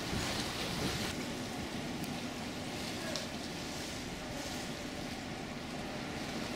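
Steady rumble of a docking cruise ship, mixed with the hiss of water churning against the pier wall below.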